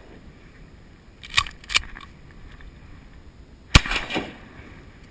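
Shotgun fired once, a single sharp report about three and a half seconds in with a short ringing tail. About a second and a half in come two lighter clacks in quick succession.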